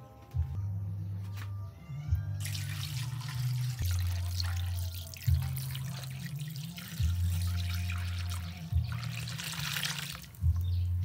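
Liquid pouring in a steady stream from a plastic jug into a metal wok full of raw chicken pieces. It starts about two seconds in and stops near the end.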